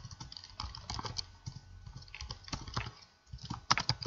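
Typing on a computer keyboard: irregular key clicks, with a quick run of louder keystrokes near the end.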